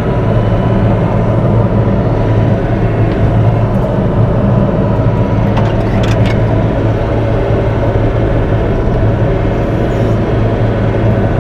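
Bobcat E42 mini excavator's diesel engine running steadily at working speed as the machine climbs out of the work area. A brief clank about six seconds in.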